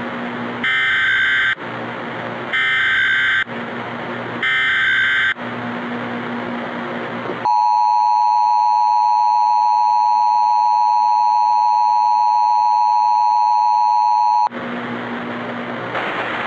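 Emergency Alert System tones over a steady hiss of static: three short buzzy data bursts about a second apart, then a steady two-tone attention signal for about seven seconds, marking the start of an emergency alert broadcast. The hiss returns near the end.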